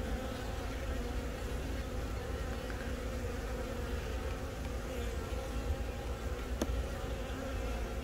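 Honeybee colony buzzing on the comb in a steady, even hum.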